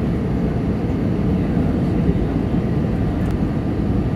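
Cabin noise inside an Airbus A320 on final approach: the engines and the airflow past the fuselage make a steady low rumble with a hiss above it.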